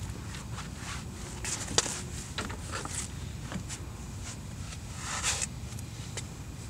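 Scattered light knocks, clicks and rustles of things being handled in a car's open trunk, with a brief louder rustle a little after five seconds in, over a faint low steady hum.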